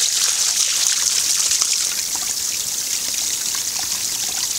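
A steady trickle of water pouring from a spout onto stone, with small splashes as hands wash something in the flow.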